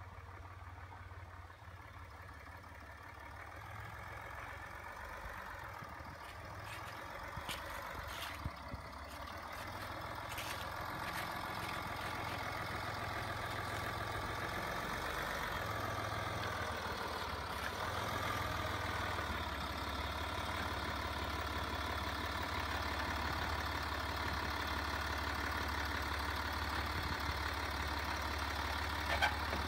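Land Rover Discovery engine running at low revs and slowly getting louder, its pitch wavering up and down partway through. A few sharp knocks come about a quarter of the way in.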